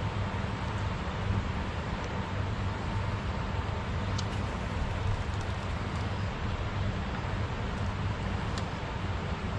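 Steady rushing noise of a wide, fast-flowing river, with wind buffeting the microphone, plus two faint short ticks, one about four seconds in and one near the end.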